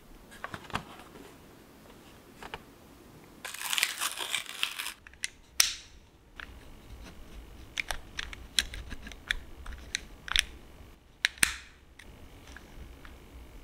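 Stationery being handled: scattered small plastic clicks and taps, a short stretch of crinkling rustle about three and a half seconds in, and a few sharper clicks later on.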